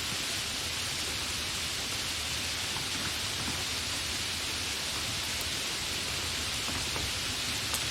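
Continuous steady rain, an even hiss of falling rain with a few scattered drop ticks.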